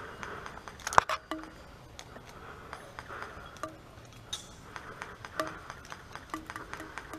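Scattered sharp clicks and knocks, the loudest a single crack about a second in, a few of them followed by a brief faint ring.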